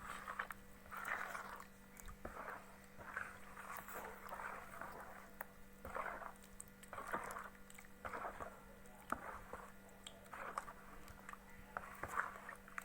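Spoon stirring thin fritter batter in a bowl, with soft wet squelching strokes about once a second.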